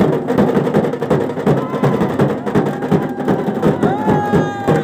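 Dhol and tasha drums played hard by a drum band in a dense, fast, unbroken rhythm, with a held pitched tone cutting through about four seconds in.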